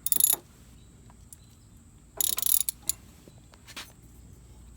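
Two short bursts of metal clicking and rattling about two seconds apart, with a faint single click near the end: hand tools being worked on a spark plug and its wire with the engine off.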